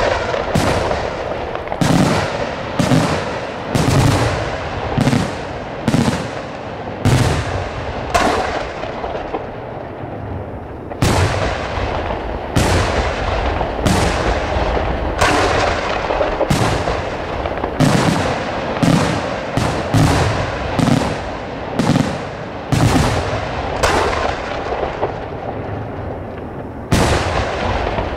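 Aerial firework shells bursting in quick succession, roughly one sharp bang a second, over a continuous rumble and crackle, with a brief lull about ten seconds in.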